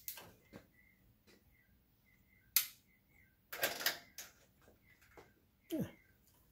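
A few sharp clicks and knocks as lamp switches are turned off, the loudest about two and a half seconds in, with a brief rustling handling noise just after, over small birds chirping faintly and repeatedly.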